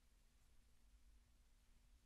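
Near silence in the gap between tracks of a vinyl LP: only faint record surface hiss and a low rumble.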